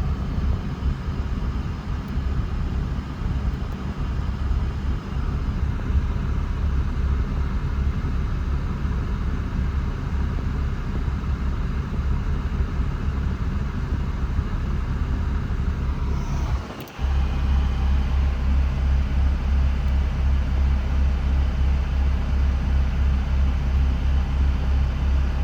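Mercedes SLK32 AMG's supercharged V6 idling steadily with a low rumble. About two-thirds of the way through the sound drops out for a moment, then comes back a little louder with a regular pulse.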